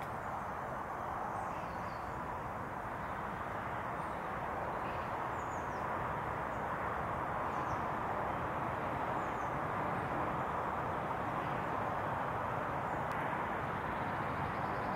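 Outdoor ambience: a steady even hiss of distant background noise, with a few faint, short, falling bird chirps scattered through it.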